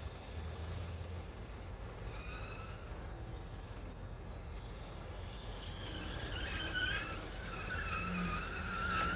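A vehicle's brakes squealing: a wavering high squeal that starts about two-thirds of the way in and holds to the end. Steady low traffic rumble runs underneath, and a fast high ticking comes in briefly about a second in.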